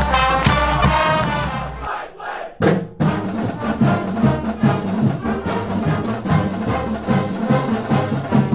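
Upbeat music with brass. It fades out and breaks about two seconds in, and a new passage with a steady beat starts about a second later.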